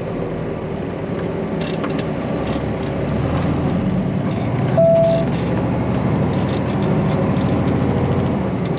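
Truck driving along: a steady low engine and road drone, with one short beep about five seconds in.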